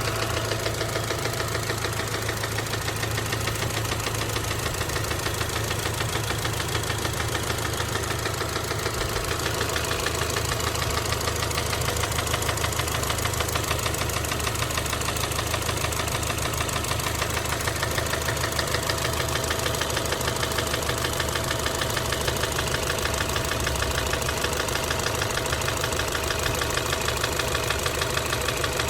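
Subaru EJ253 2.5-litre flat-four engine idling steadily with a rapid, even knocking from the middle of the engine, which the owner suspects is rod knock.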